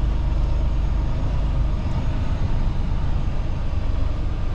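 Semi truck's diesel engine running with a steady low rumble.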